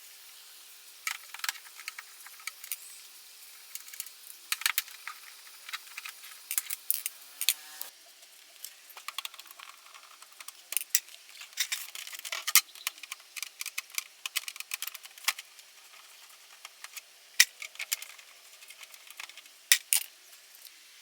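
Scattered sharp clicks and light rattles of small tools and metal parts being handled during TV repair work. A faint steady hum stops about eight seconds in.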